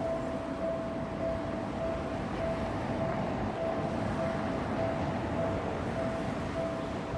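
Japanese railway level-crossing alarm ringing its repeating electronic 'kan-kan' tone, a little under two strokes a second, over a steady low rumble.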